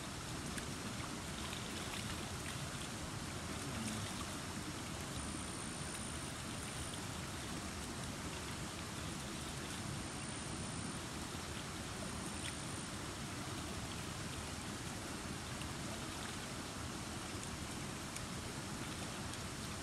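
Shallow stream flowing as a steady, even rush of water, with a few faint small splashes as hands dip into it.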